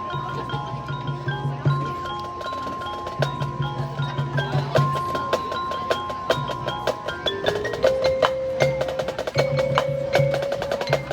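Marching band percussion section playing: rapid wood block and mallet keyboard strikes with low drum pulses over a held note that drops in pitch about eight seconds in.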